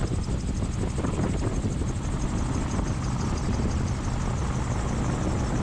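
Titanium gyroplane in flight on a descending approach: a steady drone of its engine and pusher propeller with a fast, even pulsing above it.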